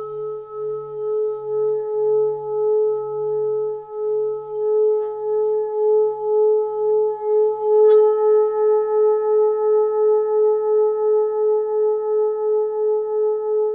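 A 24.5 cm hand-hammered Full Moon singing bowl ringing with its pulsing low D near 142 Hz and a strong G-sharp near 425 Hz. The tone wavers in slow beats. It is struck again with a mallet about eight seconds in, and the ring swells.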